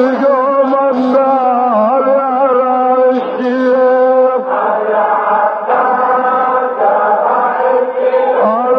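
Male voice chanting a Shia Muharram lament (latmiya) in Arabic, with long held notes that bend and waver in pitch, on an old recording.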